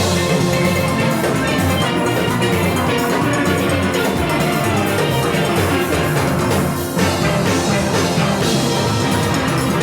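A steel orchestra playing live: many steel pans together over drums, loud and continuous, with a brief dip about seven seconds in.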